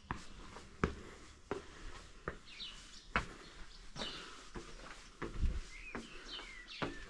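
Footsteps at an even walking pace, about one step every three-quarters of a second, with a bird chirping in short curving calls several times.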